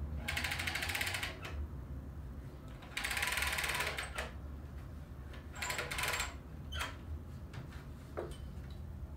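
Steam iron on an ironing board giving three sputtering hisses of about a second each, with a few light clicks between them, over a low steady room hum.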